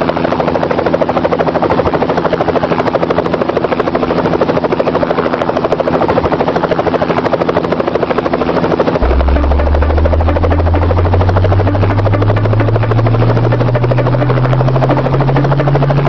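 Helicopter rotor chop with a fast, even beat. About halfway through, a deep hum joins it and slowly rises in pitch as the rotor spools up.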